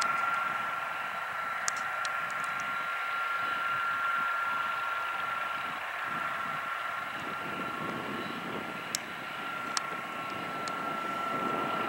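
Twin turboprop engines of a Canadair amphibious water bomber idling, a steady high whine over a hiss of engine noise, with a few faint clicks.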